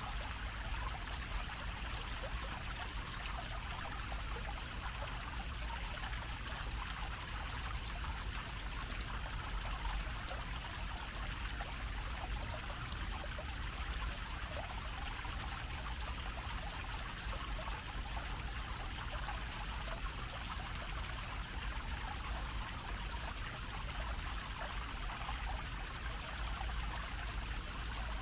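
Dome-shaped fountain jet splashing steadily as its water falls onto the grated basin, a continuous even rush with a low steady rumble underneath.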